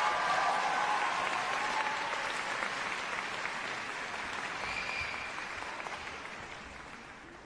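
Concert-hall audience applauding after a choral performance, the clapping dying away gradually toward the end.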